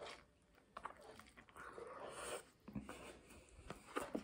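A person chewing a mouthful of tortilla-wrapped chicken, with soft, quiet mouth noises and a few short lip-smack clicks.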